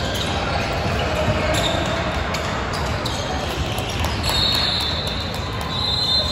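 Basketball game sounds in a large gym: a ball bouncing on the hardwood court, with high shoe squeaks on the floor in the second half, over the hall's steady din.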